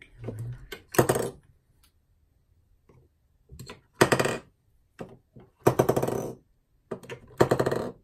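Rechargeable AA batteries clattering as they are dropped and pushed into a Sea & Sea YS-D2 strobe's battery compartment, in four short bursts of clicks and rattles.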